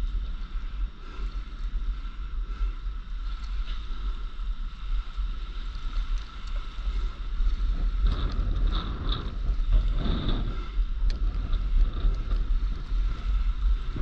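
Wind buffeting the microphone as a steady low rumble, with water splashing close by on open sea. The splashing grows louder from about eight to eleven seconds in.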